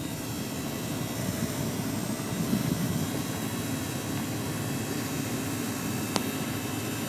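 Steady hum inside a car's cabin, with the engine running and the heater blower going. A single sharp click comes about six seconds in.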